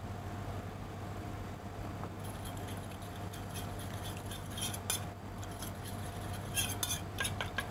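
Metal spoon scraping and clinking against a stainless steel mixing bowl while black sugar syrup is stirred into black vinegar. The clicks are scattered and come closer together in the second half, over a steady low hum.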